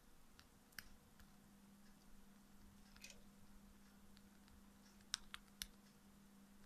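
Cockatiel's beak nibbling and cracking seeds off a seed treat: faint, sparse clicks, with a quick run of three sharper clicks about five seconds in.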